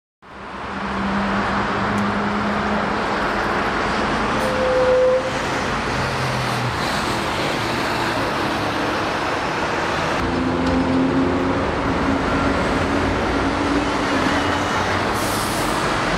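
Town street ambience, mostly steady road traffic noise, fading in over the first second, with a step down in level about five seconds in.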